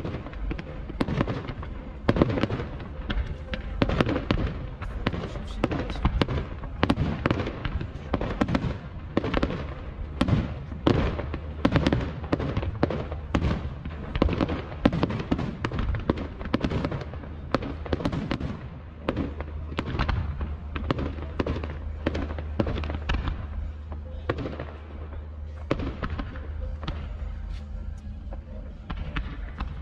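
Aerial fireworks going off in rapid succession, a dense run of sharp bangs and crackling bursts with no let-up. A steady low hum sits beneath them, stronger in the second half.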